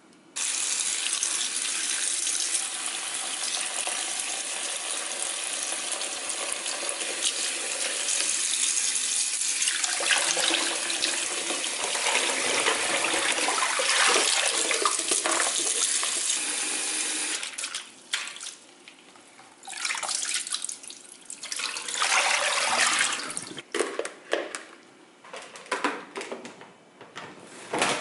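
Water running and pouring into a kitchen sink as fresh herbs are rinsed in a salad spinner. Steady for about the first 17 seconds, then in short on-and-off bursts.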